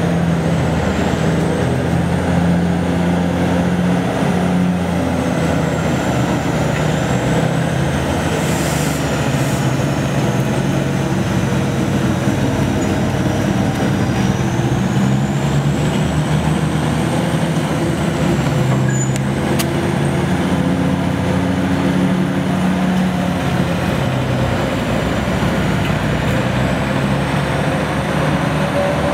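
General Electric 45-ton diesel locomotive running as it hauls slowly past: a steady low diesel engine note whose pitch shifts a little over time, with a fainter high whine wandering up and down in pitch above it.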